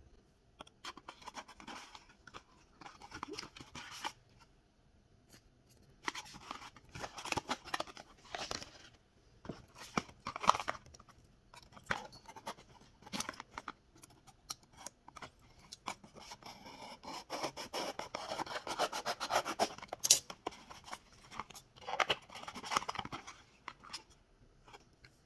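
Small cardboard blind boxes and their packaging being handled and torn open by hand: scraping, rubbing and tearing of card in irregular bursts, with sharp clicks and short quiet gaps between.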